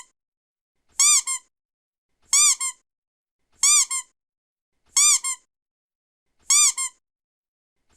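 Rubber duck toy squeaking, five times at an even pace. Each time a longer squeak that rises and falls in pitch is followed at once by a short, quieter one.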